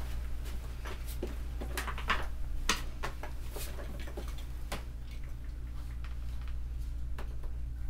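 Scattered light clicks and knocks of hands handling things at a desk and opening a white laptop, over a steady low hum. The clicks fall in the first few seconds and then die down.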